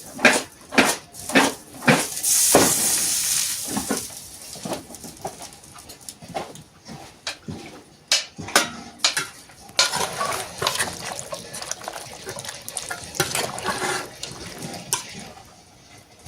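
A dog barks several times in quick succession, then water splashes and pours, with scattered knocks and clatter.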